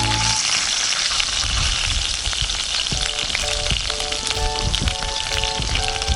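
Hamburg steak frying in a skillet, a steady sizzle full of fine crackles. A light background melody comes in about three seconds in.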